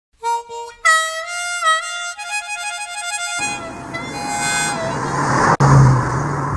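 Music: a reedy melody of held pitched notes. About halfway in, a steady rumbling noise joins beneath it.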